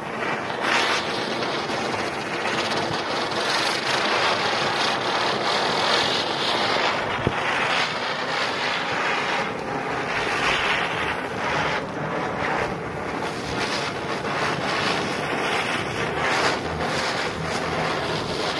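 Chakri (ground spinner firecracker) whirling on the ground, with a continuous fizzing hiss as it sprays sparks. The hiss starts right as it catches and stays steady throughout.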